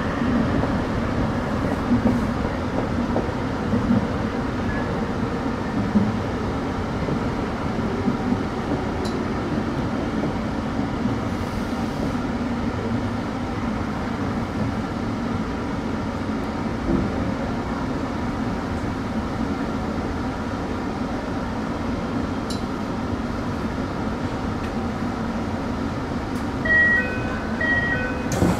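Tsukuba Express TX-2000 series electric train running, heard from inside the driver's cab: a steady rumble of wheels and motors, with a few sharp knocks from the rails in the first several seconds. Near the end, a short repeated electronic beeping in two pitches starts.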